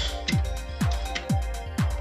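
Background electronic music with a steady beat: a kick drum about twice a second with ticking hi-hats.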